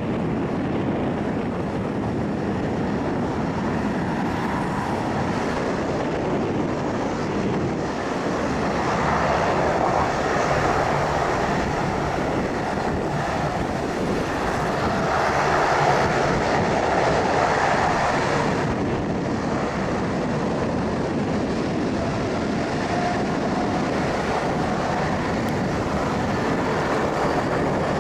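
General Electric GE90 turbofans of a Boeing 777-200 running on the runway: a steady jet roar that swells twice, with a faint whine standing out for a few seconds late on.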